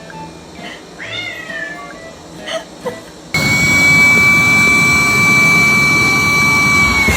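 A cat meows once. About three seconds in, a vacuum cleaner switches on abruptly and runs loudly with a steady high whine over a rushing noise.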